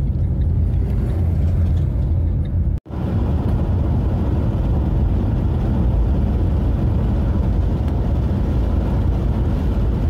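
Steady low rumble of a car's engine and tyre noise heard from inside the moving car on the highway. Near the three-second mark the sound drops out for an instant, then the same rumble carries on.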